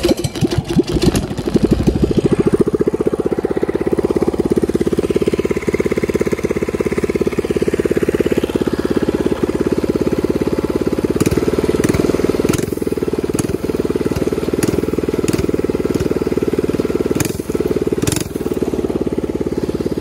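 Coleman CT200U mini bike's single-cylinder overhead-valve engine catching and then running steadily through a straight-pipe exhaust, with rapid even firing pulses. It runs on a performance carburetor with no air filter, a setup that still needs carburetor tuning. A few short sharper bursts come in the second half.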